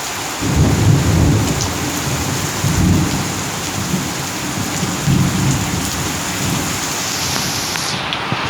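Heavy rain pouring steadily, with thunder rumbling deep and low from about half a second in, swelling again twice before dying away.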